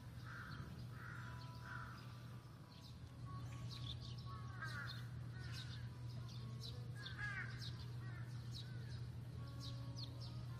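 Wild birds calling: three short harsh calls about a second apart near the start, then many quick high chirps and a couple of warbling phrases, over a steady low hum.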